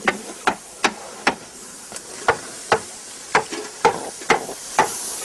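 Hammer blows, about two a second, knocking a hot iron tyre down onto a wooden cartwheel as it is shrunk into place. Steam hisses steadily underneath where water meets the hot iron.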